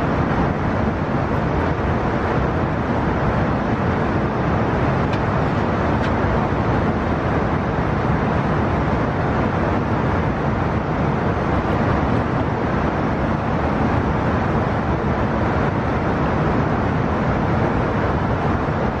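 Steady airliner cabin noise: an even, unbroken rush that holds the same level throughout.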